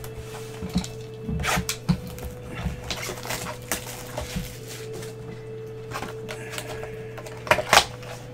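A cellophane-wrapped cardboard trading-card box being cut and torn open by gloved hands: scattered crinkles and scrapes, loudest near the end, over a steady low hum.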